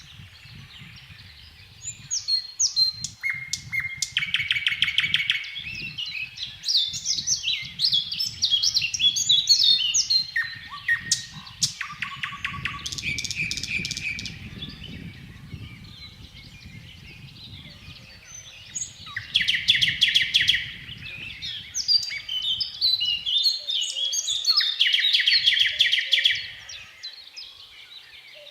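Nightingale singing in separate strophes of fast repeated notes and trills, with pauses between phrases and a longer gap of several seconds in the middle. A faint low rumble sits underneath for most of the time.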